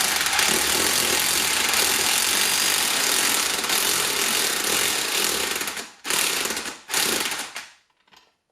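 Impact wrench hammering as it runs a nut up a threaded bar, pressing a bush into the bore of an MX-5 wishbone: one long run of about six seconds, then two short bursts.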